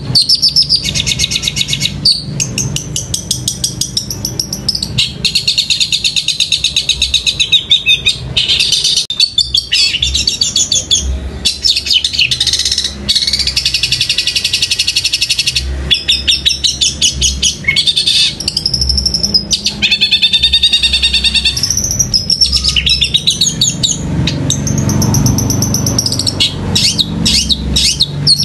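Caged long-tailed shrike (cendet) singing almost without pause, a loud stream of quick high chirps and rapid chattering trills, mixed with imitations of Eurasian tree sparrow calls.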